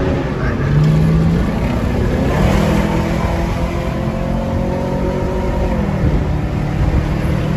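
Car driving: engine and road noise, the engine note steady with a small rise in pitch a couple of seconds in and a drop again about six seconds in.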